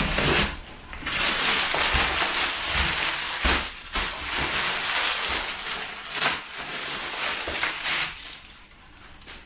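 Clear plastic wrapping crinkling and rustling as it is handled and pulled off a packed item, with sharper crackles mixed in. It dies down near the end.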